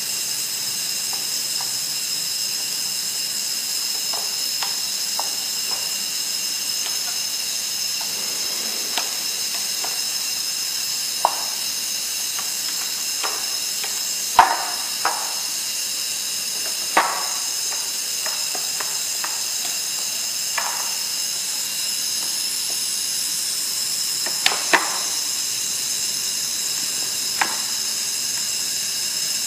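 Sheet-steel feed trough sections and their black joint connector knocking and clicking now and then as they are handled and pressed together, over a steady high hiss. The sharpest knocks come about halfway through and again near the end.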